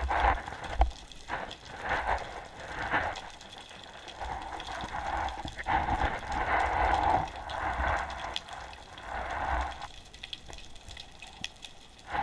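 Water moving around an underwater camera housing as a freediver swims along the seabed: muffled swishing and rushing that swells and fades, with a few dull knocks near the start.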